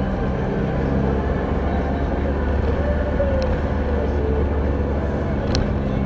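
Delivery truck's engine running at low speed, heard from inside the cab as a steady low rumble; its tone changes about a second in. Two short faint clicks come near the middle and near the end.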